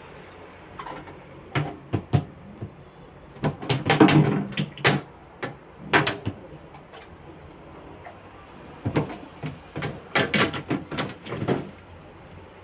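Knocks and clatters of containers and fridge parts being handled and set down, in several separate bursts.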